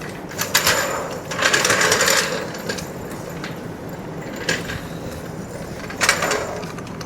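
Metal parts or tools being handled: a few bursts of clanking and rattling, one about half a second in, a longer one around the second to second-and-a-half mark, and a sharper one near the end, over a low steady shop hum.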